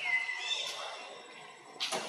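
Baby macaque giving thin, high-pitched whining cries: one call slides down in pitch at the start and a shorter one follows about half a second in. A brief sharp crackle comes near the end.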